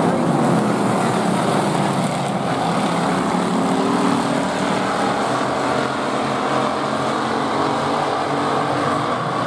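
Pure stock race car engines running at racing speed as two cars race past, a steady engine drone.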